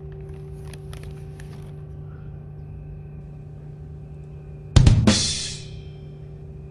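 Drum-and-cymbal sting added in editing for a reveal: a few quick sharp drum strikes about five seconds in, then a cymbal crash that rings out and fades over about a second. Under it is a steady low hum, with a few faint clicks in the first two seconds.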